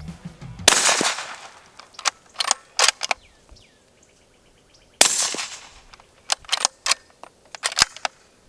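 Two shots from an integrally suppressed bolt-action rifle, about four seconds apart, each a sharp crack with a short trailing echo. Between them the bolt is worked in a quick series of metallic clicks. The first shot is noticeably louder, a supersonic-sounding pop though the ammunition is the same, which the shooters wonder is down to a cold bore.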